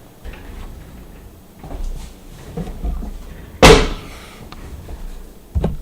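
A chair being fetched and set down: low rumbling handling noise, then one loud, sharp knock a little over halfway through as the chair lands. A smaller thump comes near the end.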